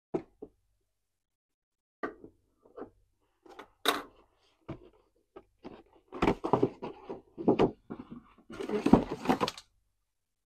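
Doll packaging being opened and handled: scattered taps and knocks on cardboard and plastic, then about six seconds in a denser stretch of rustling and scraping as the packaging is worked at.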